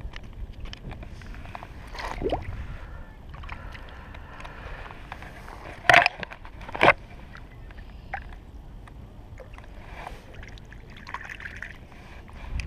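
Two sharp plastic clacks about a second apart, midway through, as a red plastic fish lip gripper knocks against the GoPro, over steady low wind and handling rumble. Near the end, water sloshes faintly as a bass is let go into the shallows.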